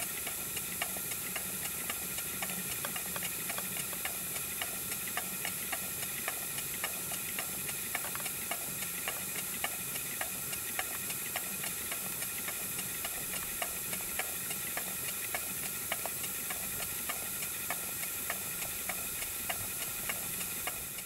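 Model steam engine running steadily and driving a small generator by belt: a continuous hiss with a regular, light ticking.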